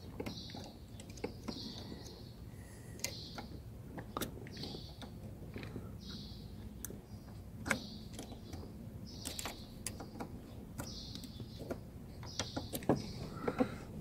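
Small screwdriver clicking and scraping against the plastic release tabs of an ignition switch on a steering column, in scattered light ticks, as the tabs are pushed in to free the switch. A short high chirp repeats about every second and a half.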